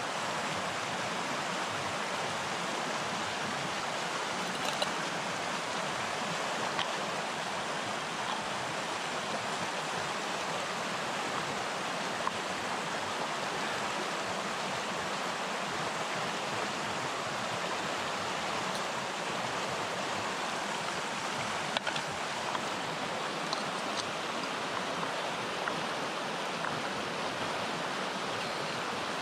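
Rushing stream tumbling over rocks, a steady, even rush of water. A few faint clicks from camp stove gear being handled.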